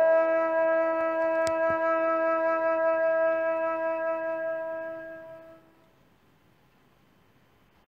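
Background music ending on one long held note from a wind instrument, fading out about five seconds in and leaving near silence. There is a faint click about a second and a half in.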